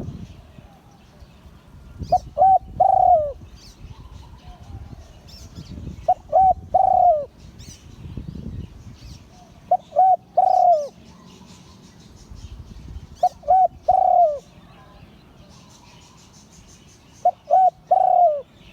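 Spotted dove cooing: five phrases about four seconds apart, each two short notes followed by a longer note that falls away at the end. Faint chirping of small birds goes on behind.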